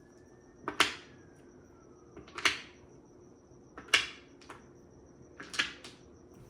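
Mahjong tiles clacking sharply against each other and the table: four separate clacks about a second and a half apart, the last a quick double.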